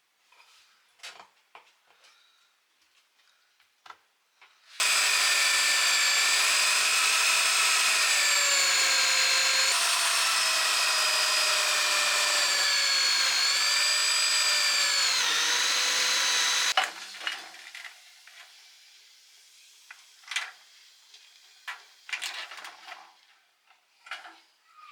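A small high-speed power tool runs for about twelve seconds, starting suddenly and cutting off about 17 seconds in, its pitch dipping a few times as it bites under load. Light clicks and knocks of parts being handled come before and after it.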